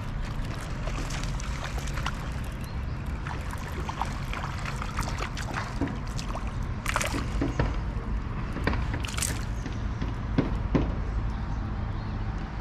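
Water trickling and splashing lightly around a kayak, with scattered small clicks and knocks over a steady low rumble.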